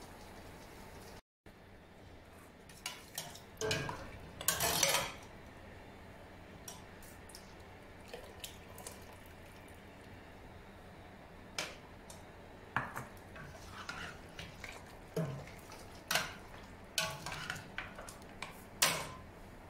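A spoon clinking and knocking against a stainless steel cooking pot as a thick stew is stirred: scattered sharp clinks, with a busier clatter a few seconds in and another run of clinks in the second half.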